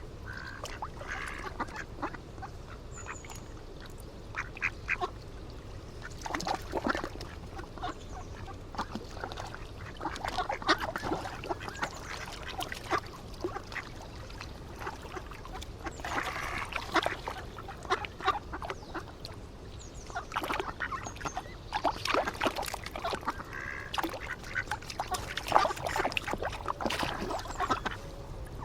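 Ducks quacking in several bouts of quick, repeated calls, over a steady low rumble.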